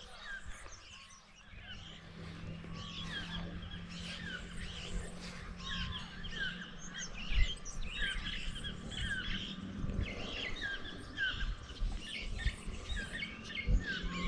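A chorus of many rainforest birds chirping and calling at once, dense overlapping short chirps and whistles that build after the first couple of seconds. Underneath is a low steady hum and rumble, with a few dull low thumps.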